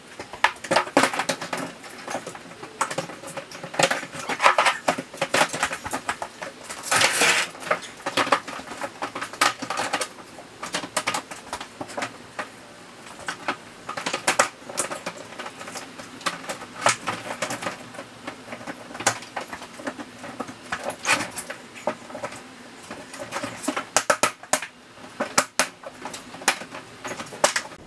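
Plastic panels of a Keter Westwood storage box knocking and clattering as they are handled, fitted and pushed together: a long run of irregular knocks and clicks.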